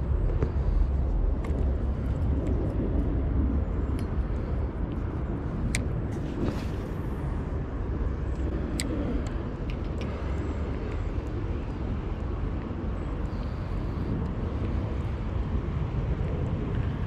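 Steady low rumble inside a jet airliner's cabin as the plane taxis, with a few light clicks.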